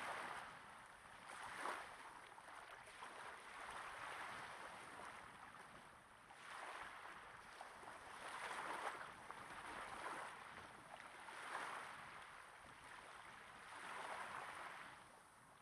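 Small waves gently breaking and washing up on a sandy beach, recorded close up: a soft hiss of water that swells and fades every couple of seconds.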